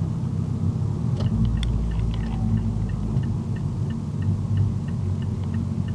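Mazdaspeed3's turbocharged 2.3-litre four-cylinder running on the move, a steady low rumble, with a light regular ticking about three times a second and a few sharp clicks between one and two seconds in.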